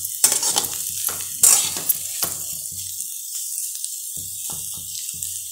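Diced boiled potatoes sizzling in oil in a pan while a steel spatula stirs and scrapes them, with a few sharp scrapes in the first two seconds. The stirring stops for about a second past the middle, then starts again while the sizzle carries on.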